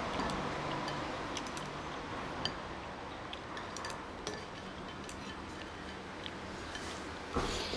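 Light, scattered clinks and taps of a metal spoon and chopsticks against a ceramic noodle bowl while eating, over a steady background noise, with a brief louder noise near the end.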